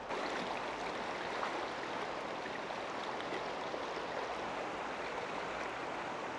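Shallow river current running over stones, a steady rushing of water.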